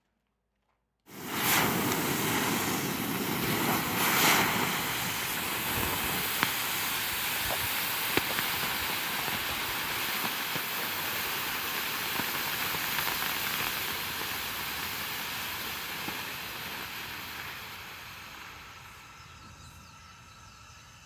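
Argento colored smoke ball burning: a steady hiss of smoke pouring out that starts suddenly about a second in, with a few small pops, then dies away gradually over the last few seconds.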